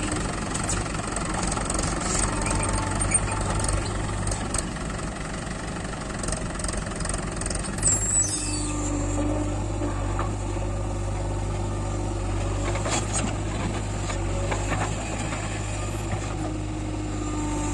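Diesel engines of a backhoe loader and a tractor running steadily as the loader works, with a brief high falling squeal about eight seconds in and a few scattered knocks.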